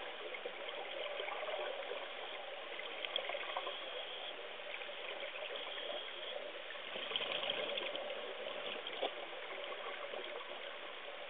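Muffled water noise recorded through a camera submerged in an aquarium tank: a steady watery hiss with scattered small clicks and ticks.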